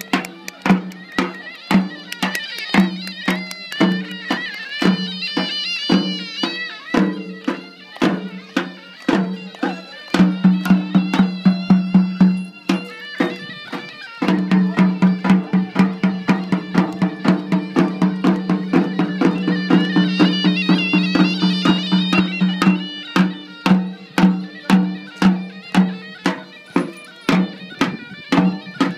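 Traditional folk music: a droning reed wind instrument plays a wavering melody over a steady, quick drumbeat. The drone swells louder about halfway through.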